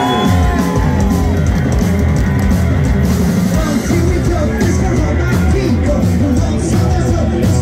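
A live rock band plays loud and steady: a drum kit and an electric bass guitar.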